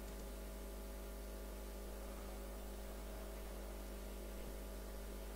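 Steady electrical mains hum with a faint hiss on the audio line; no clear dart impacts stand out.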